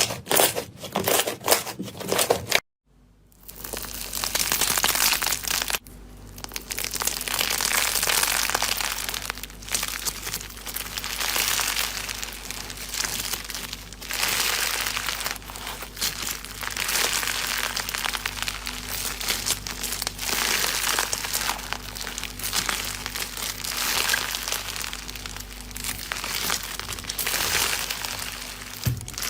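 Slime being squeezed and stretched by hand, crackling and crinkling in slow repeated swells, with a short silent break about three seconds in.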